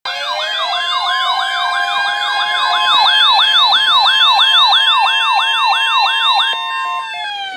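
Weather radio alert sounding a warbling electronic siren: a rapid yelp sweeping about three times a second over steady tones. It stops near the end, just before a severe thunderstorm watch is read out.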